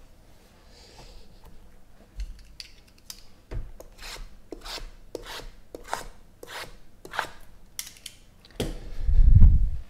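Hands scraping and rubbing over a stack of cardboard trading-card boxes: a run of quick rasping strokes, two or three a second, followed by a dull low thump near the end, the loudest sound.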